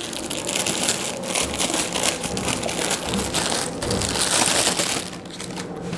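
Clear plastic wrapping crinkling and crackling as it is handled and pulled off a plastic cooking oil dispenser bottle, easing off near the end.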